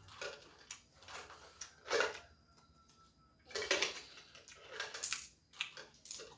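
Coins rattling and clinking inside a cylindrical coin bank as it is tipped and shaken, in about six separate bursts, the loudest about five seconds in.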